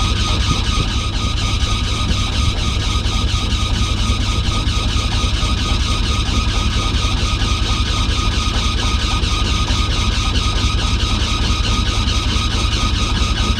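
A boat's diesel engine idling steadily, its low chugging running on evenly, with a constant high whine above it.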